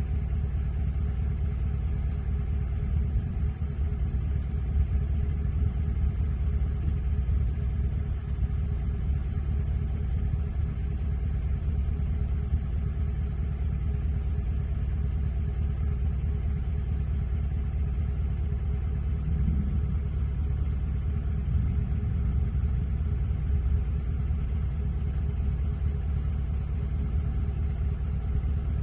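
A steady low rumble that stays even throughout, with no sharp cracks or claps.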